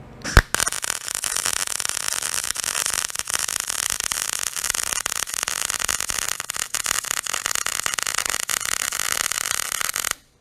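MIG welding with a Hobart Ironman 210 transformer welder: the arc strikes with a sharp pop just after the start, then runs as a steady crackling sizzle for about ten seconds and cuts off abruptly near the end.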